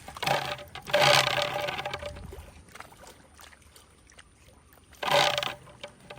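Water splashing as a hooked rohu thrashes at the surface while being landed: a long burst of splashing in the first two seconds and a shorter one about five seconds in.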